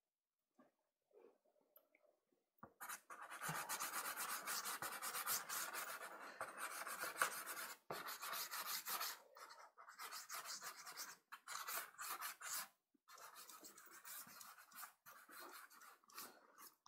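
Soft pastel stick scratching and rubbing across Pastelmat pastel paper in rapid strokes, starting about three seconds in, with a few brief pauses.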